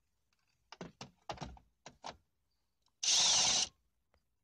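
A few light clicks and knocks as a cordless driver with a 7 mm socket is fitted onto an instrument-cluster screw. About three seconds in, the driver runs in one short burst of under a second, backing the screw out.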